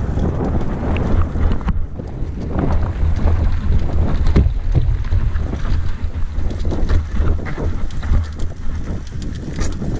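Mountain bike rolling fast down a rocky dirt track: a steady low wind rumble on the microphone, with frequent short rattles and knocks as the tyres and frame hit stones.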